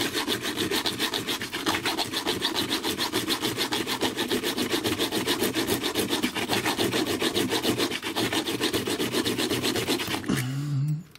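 Hand saw blade cutting through a thick steel retaining clip on a lock cylinder, in fast, even back-and-forth strokes of about five a second. The cut is being made to remove the clip and take the cylinder apart. The sawing stops about ten seconds in, followed by a brief vocal hum.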